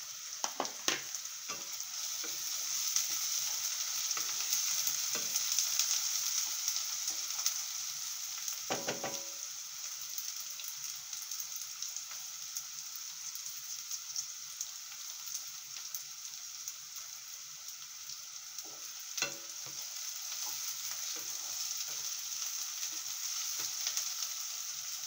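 Chopped onions with green chillies sizzling steadily in hot oil in a nonstick wok, stirred a few times with a wooden spatula that scrapes and knocks the pan.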